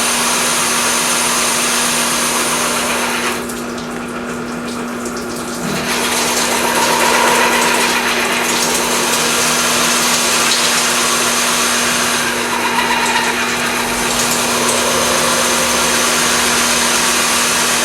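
Drill press running a water-lubricated core bit as it grinds into a piece of oil-well rock core, with water splashing. A steady motor hum sits under a loud hiss, and the hiss thins out for a couple of seconds starting about three and a half seconds in.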